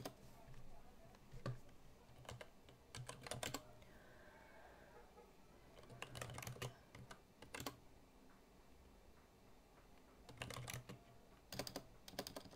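Computer keyboard typing: several short bursts of keystrokes with pauses between them.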